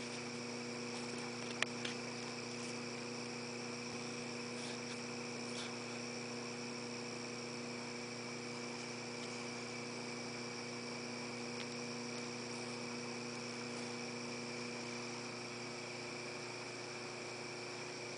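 Crickets chirping steadily in a continuous night chorus, over a steady low hum. A couple of faint ticks about two seconds in.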